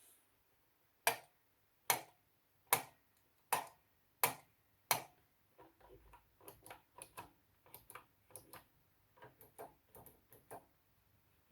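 A series of sharp clicks: six loud, evenly spaced clicks a little under a second apart, then a run of softer, quicker, uneven clicks.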